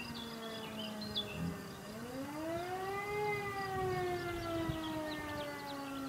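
E57 electric fire siren keyed on and off by hand. Its wail is falling at first, rises again to full pitch about two seconds in, then slowly winds down. Birds chirp faintly in the background.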